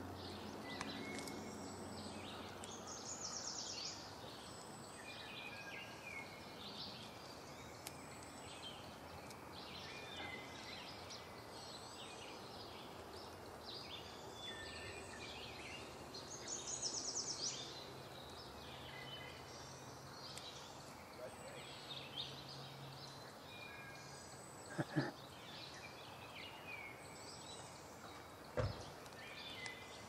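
Several birds singing and calling, with a couple of fast high trills, over a steady outdoor hiss. Two short knocks come near the end.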